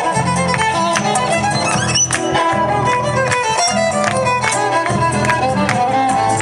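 Argentine zamba folk music, a violin carrying the melody over a steady beat.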